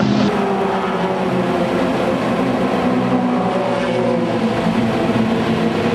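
Car engine running at fairly steady revs, a loud, even drone.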